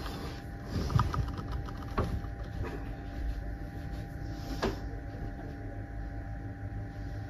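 Faint knocks and rustling of someone moving about a small bedroom, handling things while looking for something, over a steady low hum.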